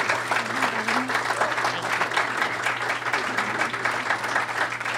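Audience applauding steadily for a few seconds, with a dense patter of many hands clapping.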